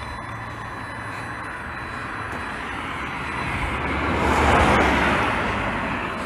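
A car passing on the adjacent road: a rushing sound that swells to its loudest about two thirds of the way through, then fades.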